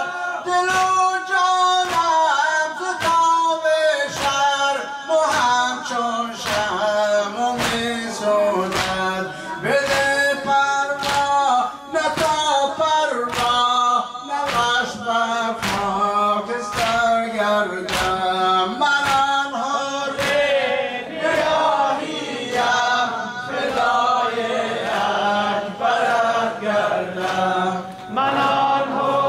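A man chanting a Persian mourning lament (noha) over a microphone, accompanied by a steady beat of hands striking chests (matam), about three strikes every two seconds.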